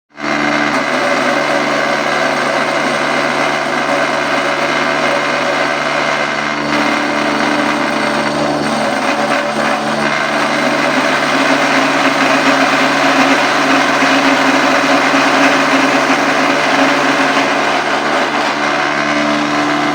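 Woodworking machine running steadily, with a constant motor hum under a continuous whirring noise.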